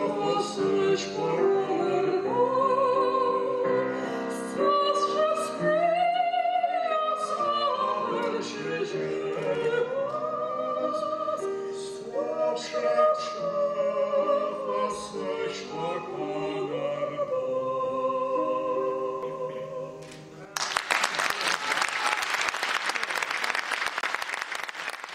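Male voice singing a slow, operatic-style song in Abkhaz with vibrato, accompanied by piano. The song ends about twenty seconds in and applause follows.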